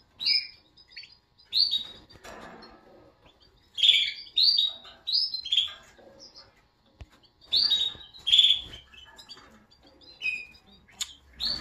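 Caged canaries chirping: short, high calls, singly or in quick runs of two or three, every second or two.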